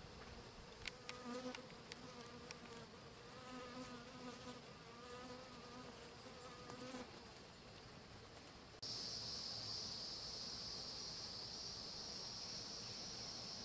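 Honeybees buzzing, a low wavering hum with a few light clicks of handling. About nine seconds in the sound cuts abruptly to a steady, high-pitched insect chorus.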